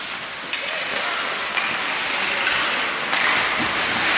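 Ice rink noise: hockey skates scraping and carving on the ice, with a few faint clicks of sticks and puck.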